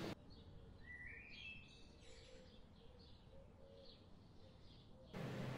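Faint bird chirping: a series of short high calls, with a rising call about a second in, over a low hiss. A louder steady hum cuts in briefly at the very start and again near the end.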